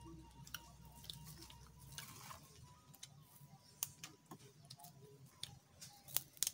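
Quiet close-up chewing, with sharp little clicks and snaps as leaves are stripped from sprigs of raw salad greens by hand, the loudest a quick pair of snaps near the end.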